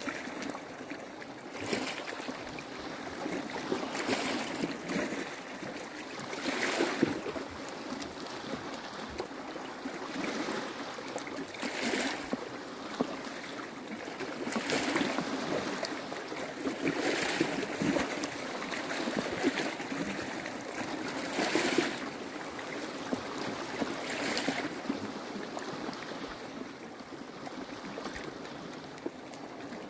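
Small sea waves washing against a rocky shore: a steady wash that swells every two to three seconds.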